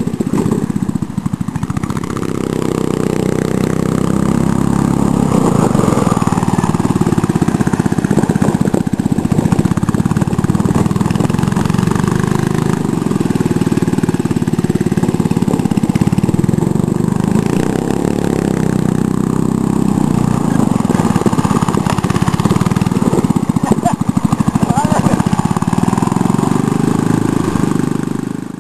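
Small lawnmower-type gas engine on a wooden go-kart running and revving up and down as the kart drives around, its pitch rising and falling again and again. The sound fades out at the very end.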